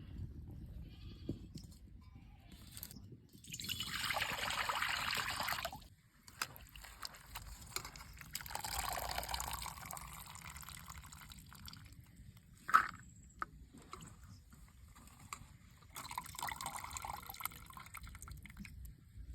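Water splashing in three short bursts of about two seconds each, with a single sharp knock about halfway through.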